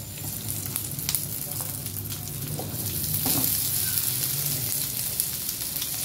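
Hot spiced oil sizzling steadily in a nonstick frying pan as mashed boiled potatoes are scraped in from a plate, with a few light knocks of a plastic spatula.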